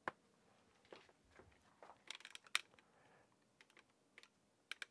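Near silence with a faint single click as the power switch is flipped, then a cluster of small clicks and rustles about two seconds in and a few more faint clicks near the end.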